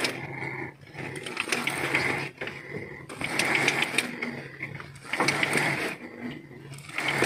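Spinning reel being cranked, its gears whirring and ratcheting in several bouts as a hooked fish is reeled in on a bent rod.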